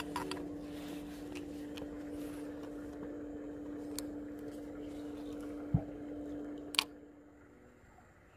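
A steady low hum with faint scattered clicks. About two-thirds of the way in there is a thump, then a sharp click, and the hum stops near the end.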